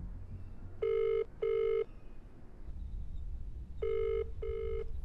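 Telephone ringback tone: a call ringing through, heard as two double rings, each a pair of short steady beeps, about three seconds apart.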